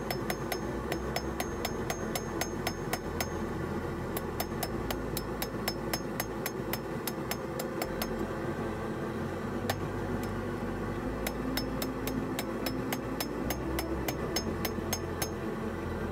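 Hand hammer striking the jaws of rebar tongs on a steel anvil in a steady run of metal-on-metal blows, about three a second. The blows land on the edges of the jaws, folding them into half-round jaws for holding round stock.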